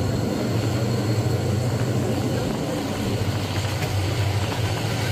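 Steady running noise of a diesel-hauled Thai passenger train heard inside a third-class carriage: a constant low engine hum under an even rumble of the moving train.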